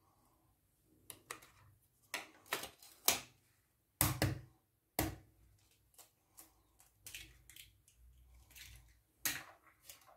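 Egg being tapped and cracked against a glass bowl: a string of sharp clicks and knocks, the loudest about four and five seconds in and again near the end.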